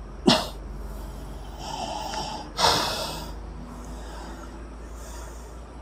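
Two sudden, forceful bursts of breath from a person, about two seconds apart, the second trailing off more slowly, over a faint steady background hiss.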